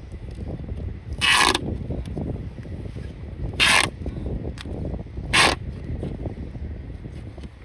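Preservation tape pulled off the roll in three quick rasping strips, about two seconds apart, over a low rumble.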